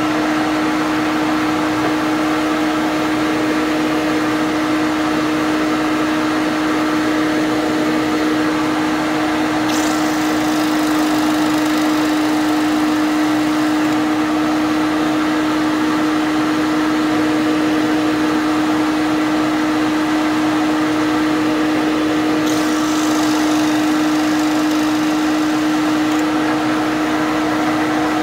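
Drill press motor running steadily with a strong hum. Twice, for about four seconds each, a hollow plug cutter bites into a thin wooden sheet and adds a hiss: it is cutting round wooden plugs for a guitar bridge plate repair.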